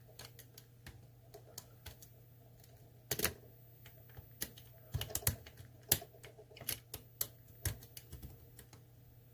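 Irregular sharp metal clicks and taps of a lock pick and tension wrench in an ASSA Twin Combi cylinder, as the tension is let off and the pins are reset, over a faint steady low hum.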